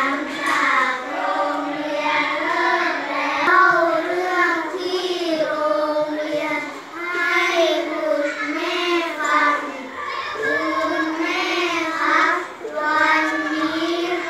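A group of children reading a Thai text aloud in unison, in a sing-song chant with drawn-out syllables; the chorus pauses briefly between lines about halfway through and again near the end.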